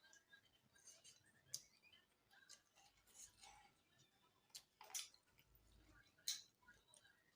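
Faint eating sounds: soft mouth clicks and smacks while chewing, with a few sharper clicks about a second and a half in, around five seconds in and past six seconds.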